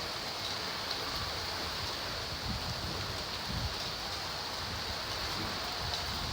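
Steady rain falling, an even hiss of drops, with a few brief low thumps in the second half.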